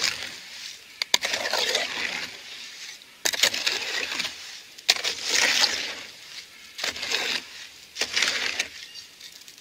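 A hoe scraping through wet quick-setting concrete mix in a plastic mixing tub, in about six strokes of under a second each, with a sharp click about a second in. The mix is at a good consistency for pouring.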